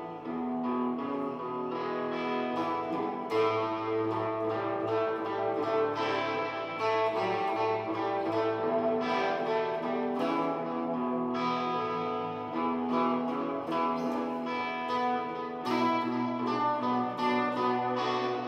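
Guitar playing a blues tune over a backing of held chords and sustained bass notes.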